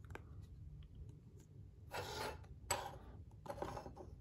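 Rigid plastic card holder handled and set into a small plastic stand on a wooden tabletop: a light click at the start, then three short rubbing scrapes in the second half.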